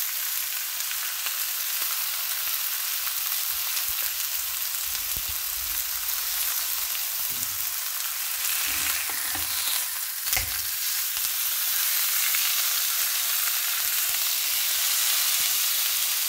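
Scottona beef steaks sizzling steadily as they sear in a hot frying pan. About ten seconds in there are a few knocks as a spatula turns them, and the sizzle grows a little louder as the raw sides meet the hot pan.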